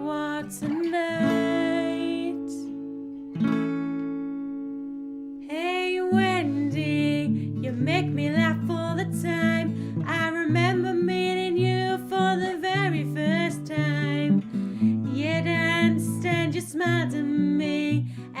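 Song with acoustic guitar chords under a gliding melody line. About three seconds in the backing falls to one held chord that rings and fades. About six seconds in the guitar strumming picks back up.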